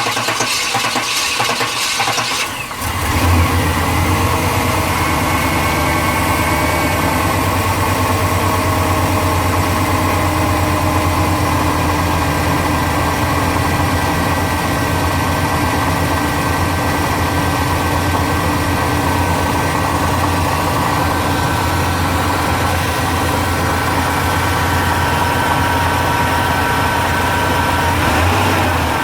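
A 1996 Chevy Tahoe's 5.7-litre V8 cranking on the starter, then catching about three seconds in and settling into a steady idle. It is a hard start: the failing fuel pump cannot bring fuel pressure up to the 50 PSI the central port injection needs while cranking.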